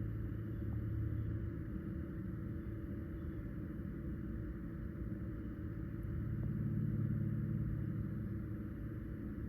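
RV fuse box cooling fan running with a steady low droning hum that eases off about two seconds in and swells back about six and a half seconds in. It is the unexplained noise the owner is trying to identify.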